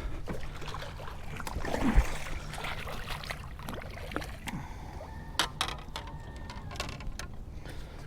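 Water splashing and sharp knocks as a hooked fish is fought and brought in, over a steady low rumble.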